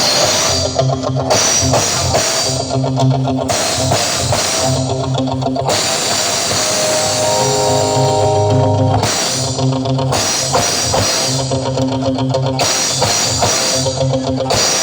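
Instrumental music with drums, cymbals, guitar and heavy bass, played loud through a sound system during a sound check.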